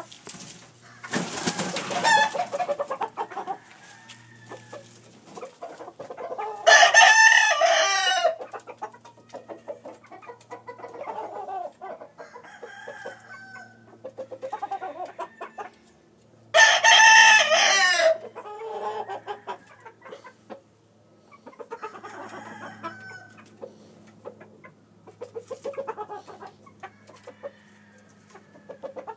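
Warhorse-hatch gamecock crowing twice, each crow about a second and a half long and some ten seconds apart, with softer clucks and calls in between. A short rustling burst comes about a second in.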